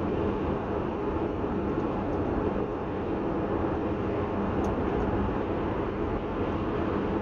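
Steady road noise of a car driving at motorway speed: tyres on the asphalt and the engine's even hum, unchanging throughout.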